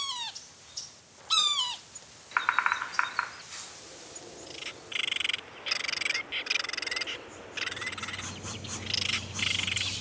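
Forest wildlife sounds: two series of falling, slurred bird calls in the first two seconds and a short rapid trill. From about halfway in, a high buzzing chorus that pulses on and off.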